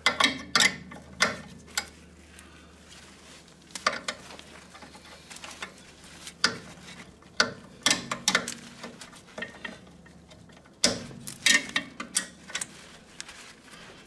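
Wrenches clinking and knocking against a steel brake-line fitting in short, irregular clusters of metallic clicks as the fitting is worked loose.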